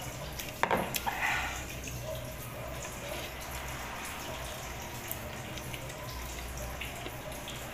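A glass bottle set down on a table with a few sharp knocks a little under a second in, followed by soft eating-by-hand sounds: small ticks of fingers working rice on a plastic plate over a steady low hum.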